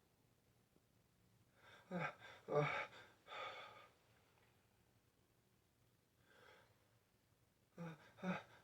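A person's short, voiced hitching gasps as a nose teases toward a sneeze that doesn't come: three quick catches of breath about two to three and a half seconds in, a faint one later, and two more near the end.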